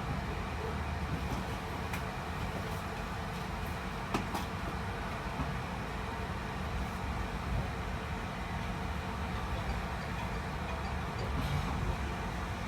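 Steady rumble and rail noise of an InterCity 125 High Speed Train on the move, heard from inside a passenger coach, with a couple of faint clicks about two and four seconds in.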